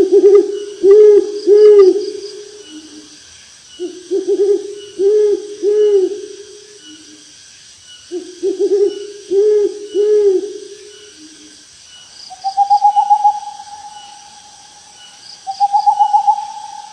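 Owl hooting: three low phrases a second or so apart, each a quick stutter followed by two longer hoots and a trailing note. Near the end come two higher, quavering drawn-out calls.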